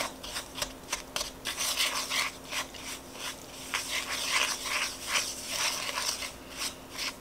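Wooden spoon scraping and rubbing against a ceramic mixing bowl, stirring crumbly brown sugar and peanut butter together in quick repeated strokes, about two to three a second.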